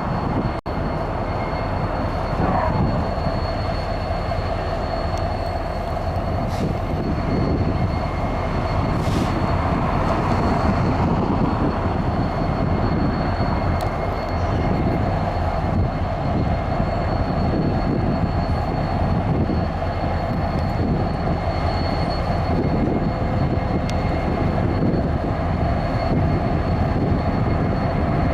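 Passenger train running on the rails: a steady rumble with a thin, constant high tone over it that holds for the whole stretch.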